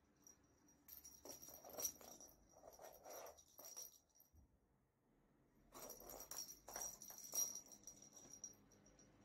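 Small bell in a cat toy jingling and rattling as a cat bites and bats at it, in two bouts of a few seconds each with a short pause between.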